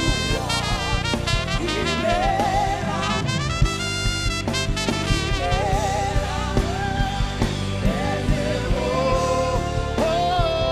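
Live worship band music between sung lines: a wavering lead melody with vibrato over sustained accompaniment and a steady drum beat.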